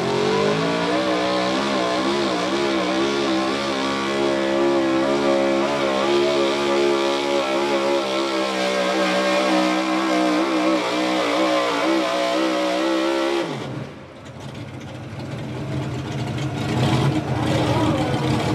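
Chevrolet pickup pulling truck's engine at full throttle, dragging a weight sled, held at high revs with the pitch wavering slightly. About 13 seconds in the engine cuts off abruptly, at the end of the pull, leaving quieter background noise that builds toward the end.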